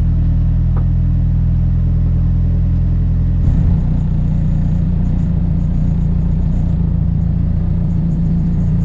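Nissan SR20DET turbocharged four-cylinder running just after a cold start, a steady low rumble; about three and a half seconds in its note shifts, the engine speed rising a little.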